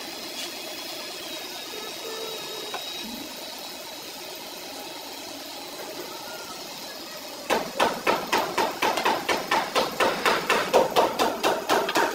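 Steady background noise, then, about seven and a half seconds in, a fast run of hammer blows on metal, about five a second, which goes on to the end.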